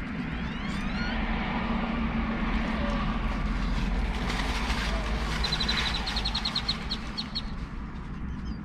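Steady traffic noise with birds chirping over it: a few short upward-sliding calls near the start, then a rapid trill of short high notes, about eight a second, around the middle.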